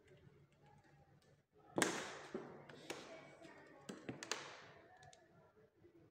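A sharp knock about two seconds in, followed by several lighter taps and knocks over the next two and a half seconds, each trailing off in an echo.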